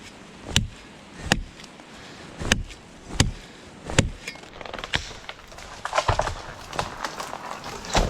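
A series of sharp, evenly spaced knocks, roughly one every three-quarters of a second.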